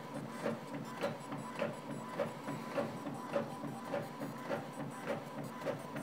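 Epson XP-4105 inkjet printer printing the reverse side of an automatic duplex page. The print-head carriage passes back and forth, with an even rhythm of strokes a little under two a second over a steady mechanical hum.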